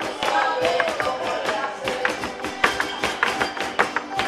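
Live folk string music with guitar, over the sharp, quick taps of a dancing couple's zapateado footwork stamping on a stage floor.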